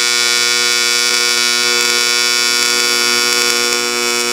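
AC TIG welding arc from a Miller Dynasty, buzzing loud and steady while tacking aluminum.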